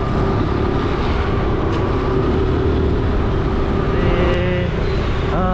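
Motor scooter riding through city traffic: wind rumbling on the microphone over the scooter's running engine and street noise, steady throughout.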